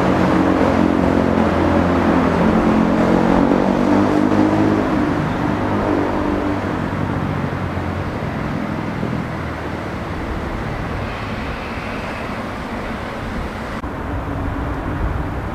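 A passing vehicle's engine hum, loud at first, fading away after about six seconds into steady traffic-like background noise.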